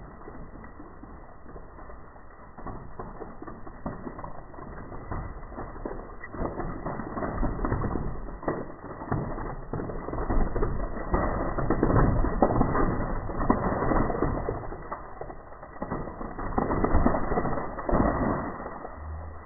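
Regular Coca-Cola erupting from its bottle after Mentos are dropped in: foam fizzing and spraying, with droplets spattering down in a crackling patter of many small hits. It builds a few seconds in, is loudest around the middle, and swells again shortly before the end.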